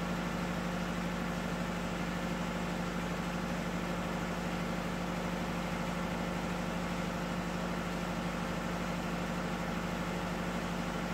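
Electric fuel priming pump on a diesel generator set running with a steady hum while it primes the fuel system.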